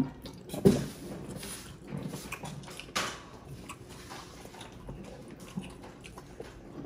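Close-miked chewing and lip smacking while eating roast chicken by hand: scattered wet smacks and clicks, the loudest just under a second in and again at about three seconds.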